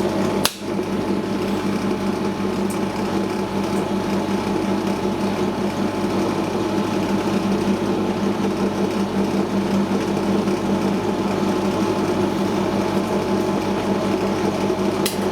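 Record Power DP16B bench drill running steadily at speed, its electric motor giving an even hum with a steady pitch. There is a single click about half a second in.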